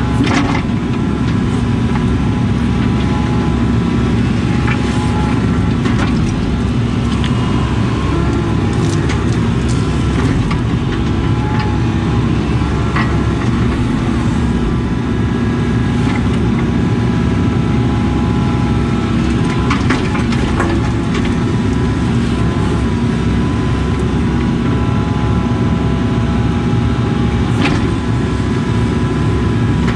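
Case CX80 excavator's diesel engine running steadily under digging load, heard from inside the cab, with a steady hydraulic whine over it. A few short knocks come through as the bucket works the dirt.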